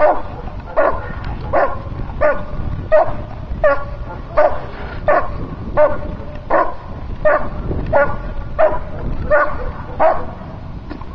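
A dog barking steadily and rhythmically, about fifteen barks at roughly one every 0.7 seconds, until about ten seconds in. It is guard barking at a helper in a bite suit during protection bitework.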